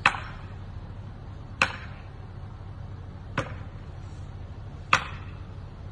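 Four sharp strikes, evenly spaced about one every second and a half, each with a short ringing tail, as from a striking tool hitting wood during tree felling. A low steady hum runs underneath.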